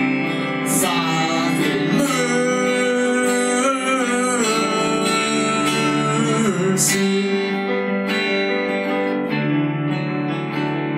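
A rock band playing an instrumental break between verses, led by guitar over a steady accompaniment.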